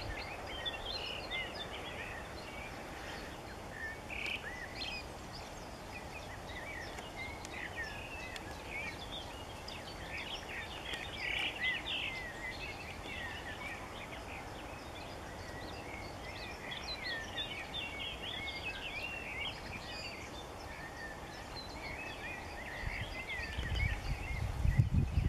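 Many small birds singing and calling at once: short, overlapping chirps and quick up-and-down whistles, over a steady low background rumble. The rumble grows much louder near the end.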